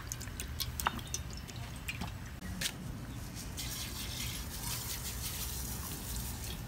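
Cooking oil poured into a hot steel pan on a propane burner, crackling and spitting. About three and a half seconds in, brown sugar is poured into the hot oil and starts to sizzle, over the low steady rumble of the burner flame.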